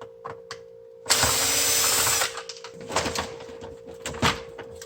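A power drill whirs for about a second, backing a screw out of a vacuum sealer's plastic housing. Scattered light clicks and taps come before and after it.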